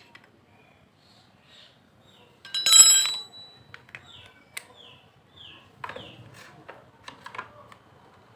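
A steel wrench clinks against the motorcycle's brake caliper: one loud, ringing metallic clink about three seconds in, among scattered light tool clicks.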